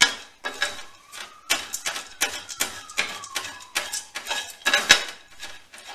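Wooden spoon stirring and scraping roasted sunflower seeds and sultanas around a nonstick frying pan: an irregular run of clicks and scrapes, several a second.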